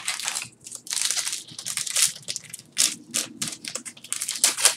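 Foil Yu-Gi-Oh! booster pack wrapper crinkling and crackling in irregular bursts as it is pulled from the box and torn open by hand.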